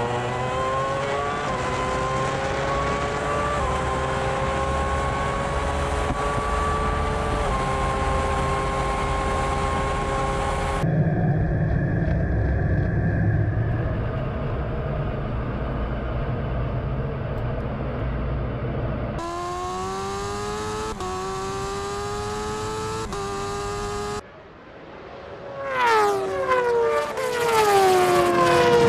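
Racing engines accelerating hard through the gears, the pitch climbing and dropping back at each shift. This is followed by a deep jet rumble heard inside a fighter cockpit, more stepped acceleration, and near the end a racing vehicle passing close with its pitch falling.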